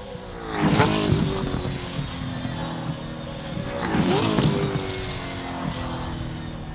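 V8 Gen3 Supercars racing past at speed: two pass-bys about three and a half seconds apart, the engine note dropping in pitch as each car goes by.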